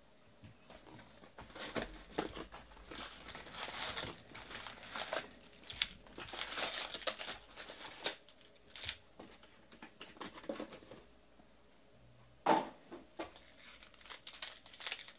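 Foil-wrapped trading card packs crinkling and rustling as they are pulled out of a cardboard 2019 Bowman baseball box, starting about a second and a half in. A single sharp knock, the loudest sound, comes about twelve seconds in as packs are set down in stacks on the table.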